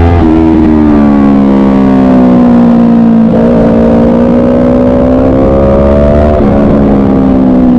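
Motorcycle engine heard from an onboard camera as it is ridden hard. Its pitch slides down, jumps up about three seconds in and climbs as it accelerates, then falls again near the end as the throttle comes off.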